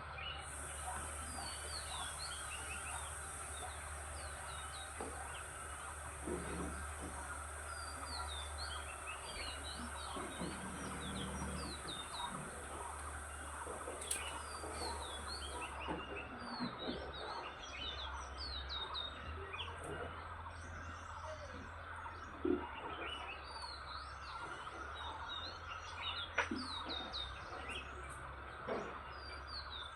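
Many small birds chirping in a morning chorus: a dense stream of short, quick downward-sliding chirps overlapping. A steady high-pitched hiss sounds with them and stops about halfway.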